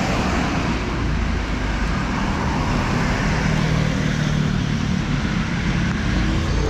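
Steady road traffic on a wet city street: a continuous hiss of tyres on wet tarmac over low engine rumble, with a faint engine hum in the middle.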